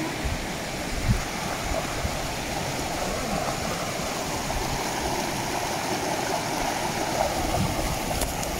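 Shallow mountain stream running over rocks beside a small cascade: a steady rush of water, with a low bump about a second in.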